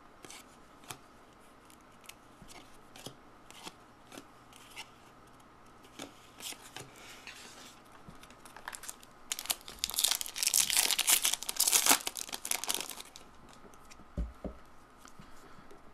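Trading cards being handled with light clicks and rustles, then about ten seconds in a few seconds of loud tearing and crinkling as a card pack's wrapper is ripped open.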